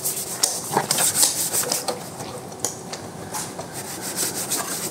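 Detailing brush scrubbing wet engine-bay plastic: a run of quick rasping strokes, busiest in the first two seconds and sparser after.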